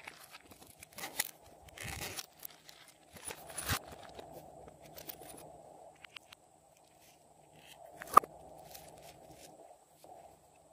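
Hands handling small plastic slime containers and toppings: scattered clicks, light scrapes and crinkling. One sharp plastic click comes about three-quarters of the way through.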